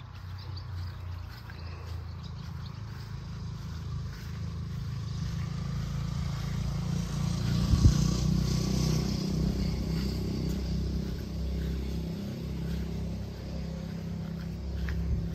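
An engine running nearby, most likely a passing vehicle: a low hum that grows louder to a peak about halfway through and then slowly eases off. A single sharp knock comes just before the peak.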